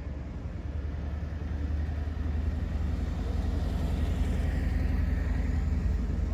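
A motor vehicle passing close by: a low rumble that swells over the first two seconds and then holds steady.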